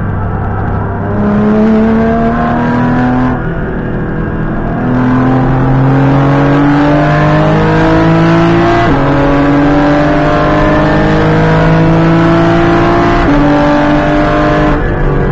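Porsche GT4 Clubsport MR's flat-six heard from inside the cockpit under hard acceleration. Its pitch climbs steadily in each gear and drops sharply at two upshifts, about nine and thirteen seconds in, with the car shifting at about 6600 rpm. There is a brief lift about three seconds in.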